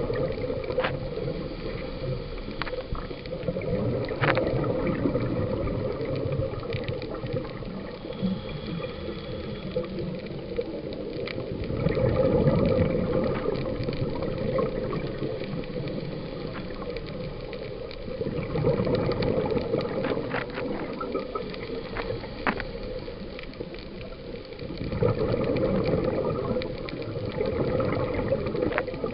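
Scuba regulator breathing heard underwater: exhaled bubbles rush out in louder surges about every six seconds over a steady background hiss, with a few sharp clicks scattered through.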